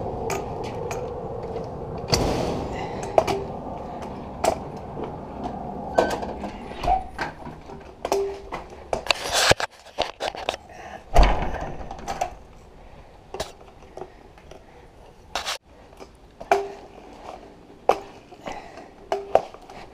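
Irregular knocks, clicks and clatter of objects being handled, with a few short squeaks and two louder hits near the middle.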